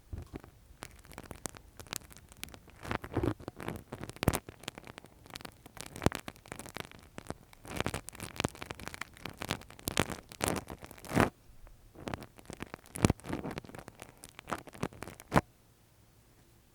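Ear-cleaning ASMR: a tool scraping and rubbing right at the microphone, dense crackling scratches with sharp louder clicks scattered through, stopping about fifteen seconds in.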